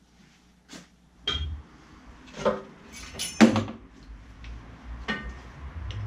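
Several sharp metallic clinks and knocks, the loudest a little past the middle, as a steel piston-and-connecting-rod assembly is drawn out of a cylinder of a DW12 diesel block and its rod cap handled against the metal.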